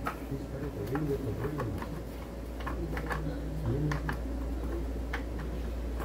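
Scattered light clicks and ticks of metal scooter parts and tools being handled during disassembly of the front suspension, over a steady low hum.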